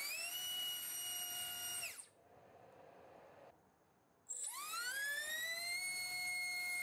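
BrotherHobby T1 1407-4100KV brushless quadcopter motor spinning a small propeller on a thrust stand: a high-pitched whine that holds steady and then spins down quickly about two seconds in. After a short pause the motor spins up again with a 3-inch three-blade prop, its whine rising over about a second and a half and then holding at a lower pitch.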